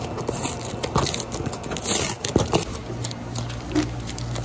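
Plastic-wrapped sandwiches and their paper labels being handled and unpacked from a cardboard box: crinkling, rustling and scattered clicks, with a steady low hum of kitchen equipment underneath.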